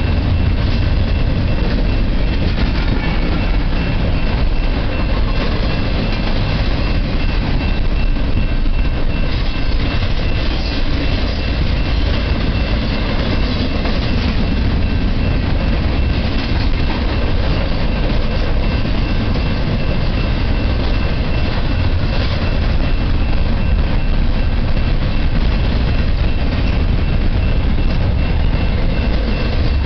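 Double-stack intermodal freight train's container cars rolling past steadily and close, a continuous loud rumble of steel wheels on the rails.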